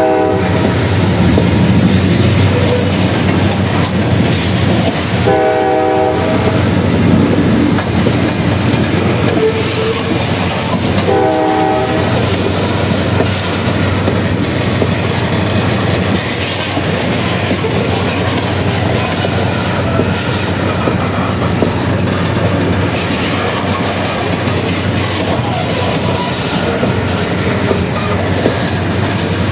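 Loaded coal hopper cars rolling past with a steady clatter of wheels on the rails. The lead EMD diesel locomotive's horn sounds short blasts up the line, about five seconds in and again about eleven seconds in.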